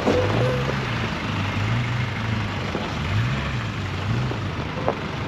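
Off-road vehicle engine revving up and down about five times in quick succession, each rev a short low rise and fall in pitch.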